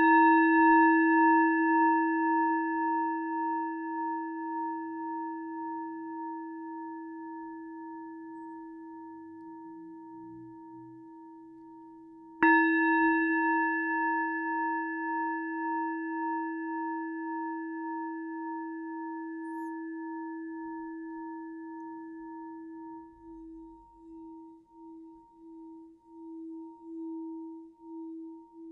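Small Tibetan singing bowl, about 14 cm across, ringing a clear high tone with several overtones; it is struck again about twelve seconds in. Each strike fades slowly with a gentle wavering pulse.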